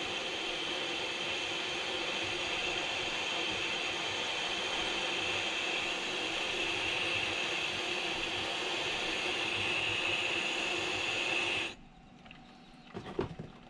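The wet grinding stone of a knife-sharpening system is being surfaced while it turns, with a grading tool held against it. It makes a steady gritty hiss that stops suddenly near the end, followed by a few light knocks.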